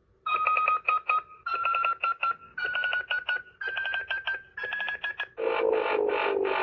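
Power Rangers Cosmic Fury Cosmic Morpher toy playing electronic sound effects through its small speaker: five short stuttering beep phrases, each a step higher in pitch, then a denser buzzing tone that slowly falls, starting a little after five seconds in.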